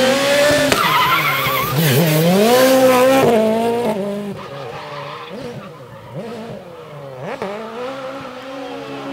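Ford Fiesta rally car's engine revving hard as it comes past at full throttle, its pitch dropping sharply twice in the first few seconds at gear changes or lifts. After about four seconds the sound fades as the car drives away, still revving up and down.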